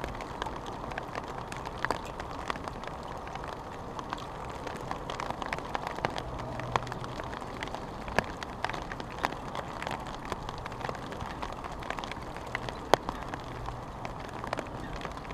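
Heavy rain pouring down on a fishing umbrella canopy overhead: a steady patter with many separate sharp drop hits, one louder hit near the end.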